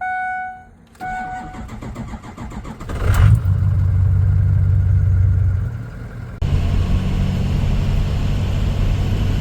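Two short beeps, then an engine cranking for about two seconds and catching, settling into a steady run. The running sound changes abruptly about six and a half seconds in.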